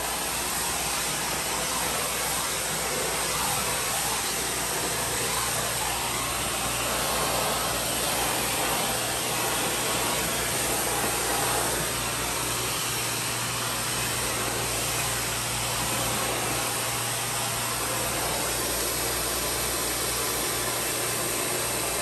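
Central vacuum system running, air rushing through the hose and floor brush in a steady, loud hiss as the brush is worked over a hard floor.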